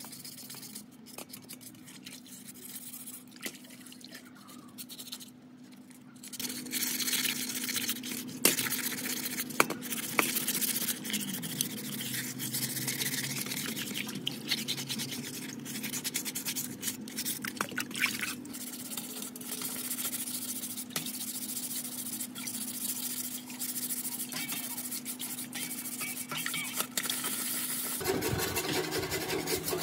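Wet sanding by hand in a steel basin of water: sandpaper scrubbing on a primed round drill part, with splashing and dripping, getting louder and busier about six seconds in. Near the end it changes to dry sandpaper rasping on a sheet-metal belt cover.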